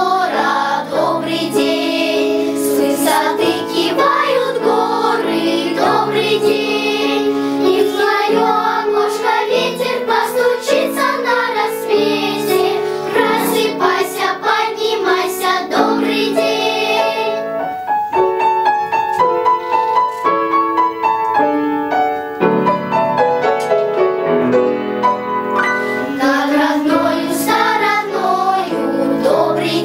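Children's choir of girls singing in unison with piano accompaniment. A little past halfway the voices drop out for a piano interlude of about eight seconds, and the choir comes back in near the end.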